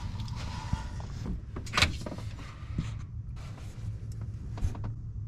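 Scattered sharp knocks and clinks of hand tools against metal engine parts, the loudest a little under two seconds in, over a steady low hum. A hissy noise fades out during the first second.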